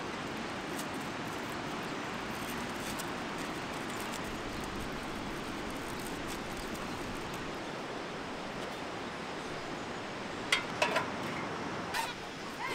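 Steady rushing of a fast river. A few short, sharp knocks or yelps come through near the end.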